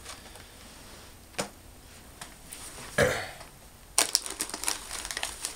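Snack packages being handled: a light tap, a short thump near the middle, then from about two thirds in a quick run of crinkling and clicking as plastic-wrapped snack packs are picked up and handled.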